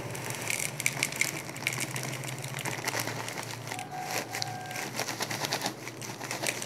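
Shoti flour, a coarse starch with small hard lumps, poured into a stainless steel bowl. The lumps make many small, irregular ticks and taps against the metal.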